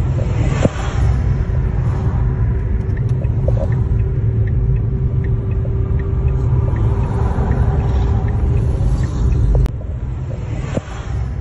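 Loud, steady low rumble of a military jet aircraft flying overhead, recorded on a phone, with a faint steady hum through most of it. The rumble drops abruptly about ten seconds in.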